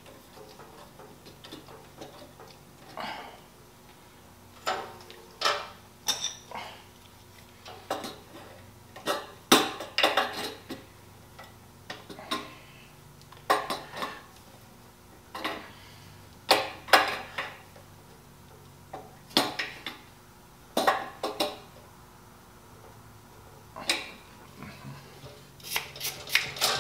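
Sharp metal clinks and clicks of an adjustable wrench working on the fittings of an air compressor's new regulator, coming irregularly, often in small clusters a second or two apart.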